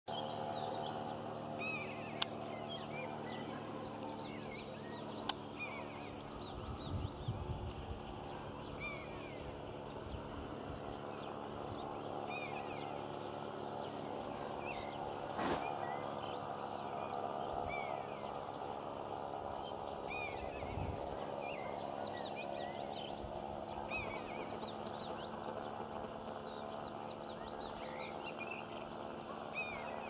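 Meadow ambience: rapid, high-pitched ticking trills in short phrases about once a second, with short chirps from small birds in between.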